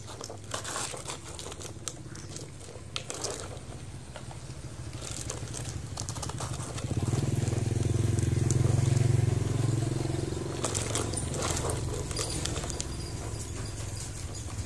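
Plastic toy excavator being pushed through loose dirt, its wheels and bucket crunching and scraping in short crackles. Under it a motor engine hums steadily, growing louder about halfway through and then easing off, as a vehicle passing by does.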